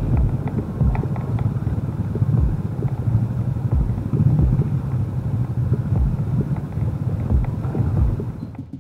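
A vehicle running along a road: steady low rumble with scattered bumps and wind buffeting the microphone. The sound drops out abruptly right at the end.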